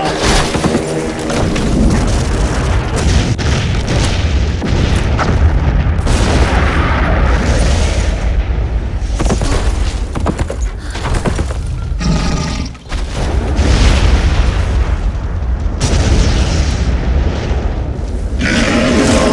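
Action-film chase soundtrack: a dense, loud low booming rumble with many sharp thuds, with music mixed in, over galloping horses. Near the end, shouting voices come in.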